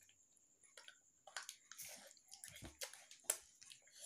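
Quiet eating sounds: chewing, and plastic spoons and forks clicking and scraping against a plastic sundae cup and cardboard food boxes, with one sharper click about three seconds in.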